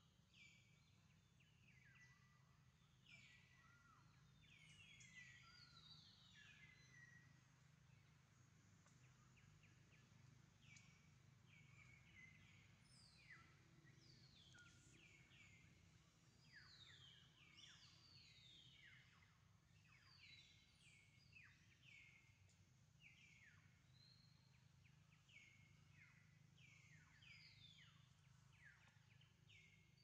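Faint outdoor ambience of many birds calling, with short descending whistled notes overlapping throughout over a low steady hum.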